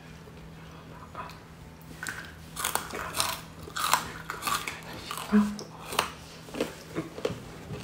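Close, loud crunching as a hard krupuk cracker is bitten and chewed: about a dozen sharp crunches starting about two seconds in.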